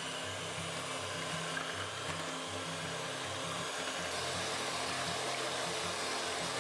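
Electric mixer running steadily, beating milk and instant pudding mix in a bowl.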